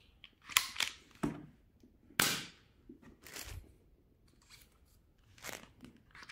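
Toy packaging and plastic toy parts being handled: a few scattered rustles and clicks, the loudest a short tearing rustle about two seconds in.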